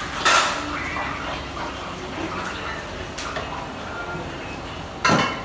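Two brief rushing noises, one just after the start and one near the end, each lasting about a third of a second, over faint background voices.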